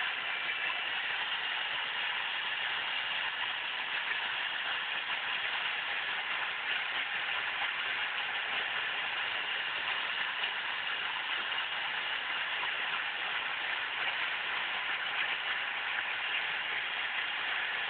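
Power polisher running against an aluminum wheel during a polishing pass, a steady, unbroken rushing noise.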